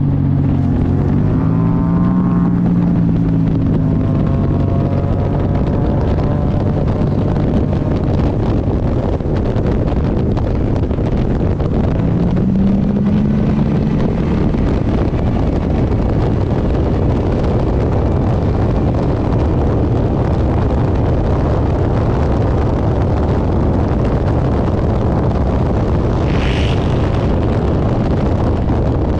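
A race car's GM engine running on track under heavy wind noise, its pitch rising and falling with throttle and gear changes near the start and again around the middle. A brief high-pitched sound about three-quarters of the way through.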